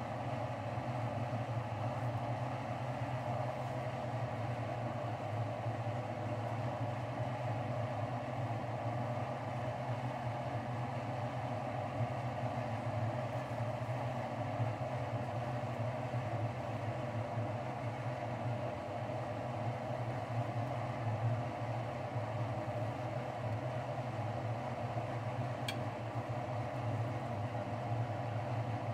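A steady mechanical hum, even and unchanging throughout.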